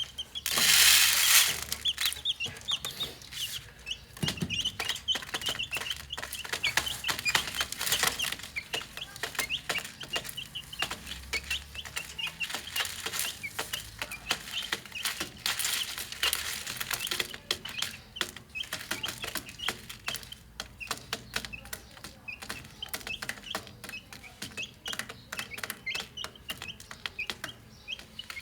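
Chicks peeping over and over while pecking at feed, with many quick sharp taps. A loud burst of rustling noise comes about a second in.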